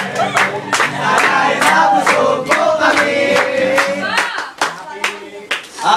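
A group of people singing together with hand claps, one voice holding a long note about halfway through.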